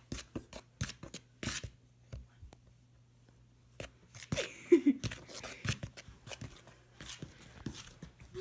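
A spoon scraping and stirring dry ingredients (flour, baking powder and baking soda) in a mixing bowl, in quick repeated strokes that pause for a couple of seconds and then resume. A short gliding voice-like sound is heard about halfway through.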